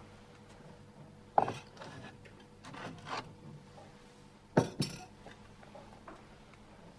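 A few sharp knocks and clinks over a quiet background: a loud one about a second and a half in, a couple of softer ones around three seconds, and a loud double knock near five seconds.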